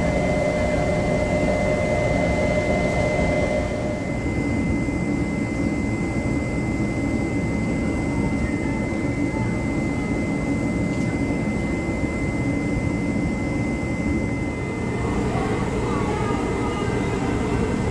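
Train locomotive running steadily with a low rumble and a constant high whine. A mid-pitched hum drops away about three and a half seconds in.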